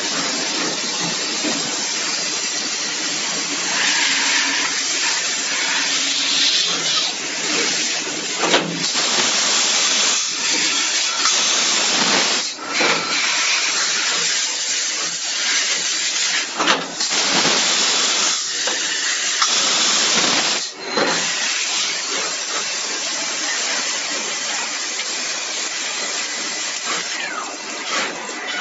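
CNC milling machine at work on a metal part for an LED track light, giving a steady loud hiss that is broken by short dips about every four seconds.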